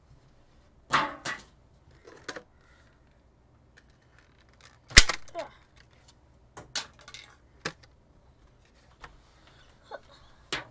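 Clear plastic insert tray from a Pokémon card tin being handled and emptied: a string of separate plastic clicks and crackles, the sharpest about five seconds in.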